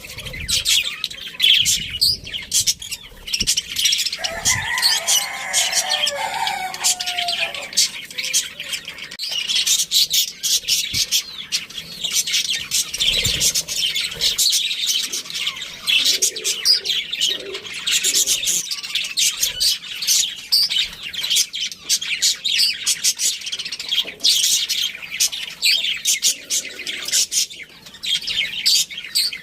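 A group of budgerigars chirping and chattering continuously in a dense, high-pitched stream. A lower, longer call sounds from about four to seven seconds in.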